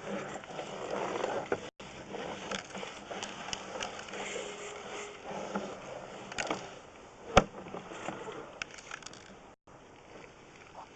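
Sewer inspection camera's push cable being fed into the house drain line: irregular scraping and rattling, with scattered clicks and one sharp click about seven seconds in.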